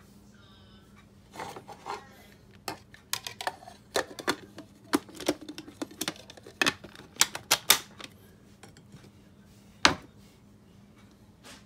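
Plastic clicks and clacks, irregular and sharp, as the clear lid of a food processor is fitted onto its filled bowl and handled, with one loudest clack near the end; the motor is not running.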